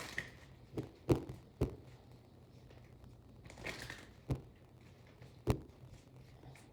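Handling noises from a tarot deck: several sharp taps and a brief crinkling rustle about halfway through.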